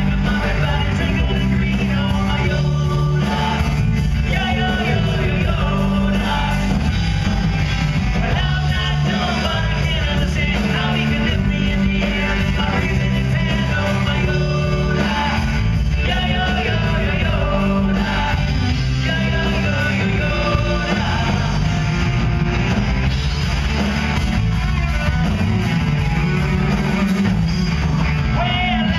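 A live rock band playing at full volume, with electric guitars, bass and drums under a lead vocal, heard from within the audience and heavy in the bass.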